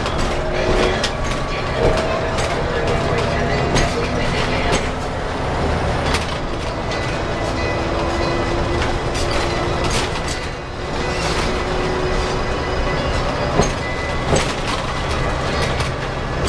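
Inside a Scania L94UB city bus on the move: the rear-mounted 9-litre six-cylinder turbo diesel drones steadily under road noise, with frequent short clicks and rattles throughout.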